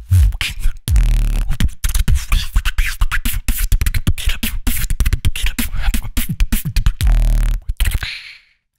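Beatboxing into a microphone: fast, dense kick, snare and hi-hat sounds over deep 808-style bass booms that drop in pitch, with long low bass notes about a second in and again near seven seconds. The beat stops about eight seconds in.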